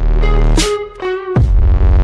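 Electronic intro music with a heavy bass line, sustained synth notes and a sharp hit about every 0.8 seconds.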